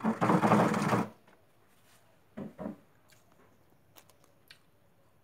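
Recording phone being picked up and repositioned: a loud scraping rustle right on the microphone for about a second, then two soft knocks and a few small clicks as it is set down.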